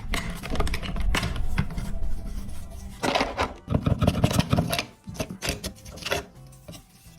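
A fast, irregular run of sharp clicks and knocks, with a denser cluster of heavier knocks about three seconds in.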